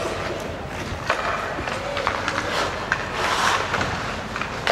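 Ice hockey skates scraping and carving on the ice, with scattered short clicks from stick and puck, over a murmur of voices in the rink.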